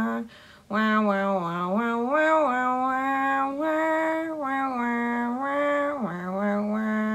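A single voice singing a slow wordless tune, holding each note and sliding between them, with a short break just after the start.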